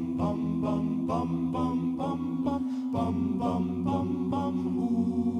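All-male a cappella group singing wordless backing syllables: held low chord notes under short repeated sung syllables, about four a second, with a chord change about three seconds in.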